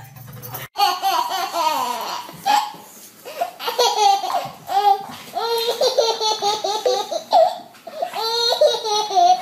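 A baby laughing in repeated high-pitched bouts.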